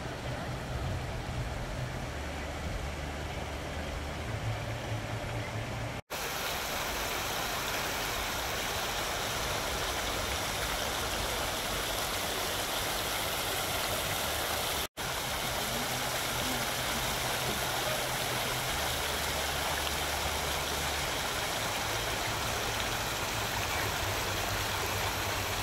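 Steady rushing splash of fountain jets falling into a round basin, with a low rumble underneath. The sound drops out for an instant twice.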